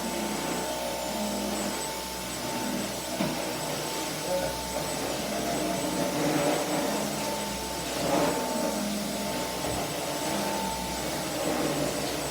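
Household vacuum cleaner running steadily, with a constant high whine over its motor noise and a few small swells in loudness.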